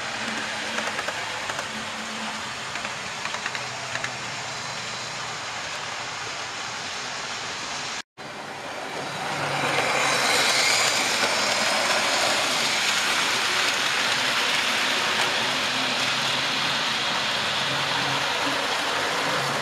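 Model railway trains running along the layout's track: a steady hum of motors and wheels on rail, growing louder about nine seconds in as a locomotive passes close.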